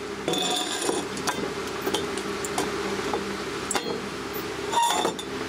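Small metallic clinks and clicks of screws and a circuit board being handled on a workbench, with a few short ringing clinks spread through, the loudest near the end, over a steady low hum.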